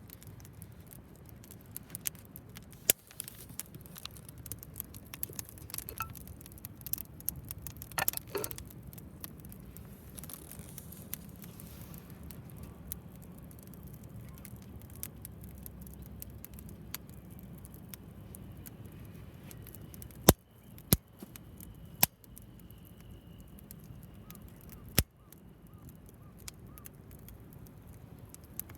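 Wood fire crackling in a homemade tower-type fire pit: many small ticks and pops over a low steady rumble, with a few loud sharp snaps in the second half.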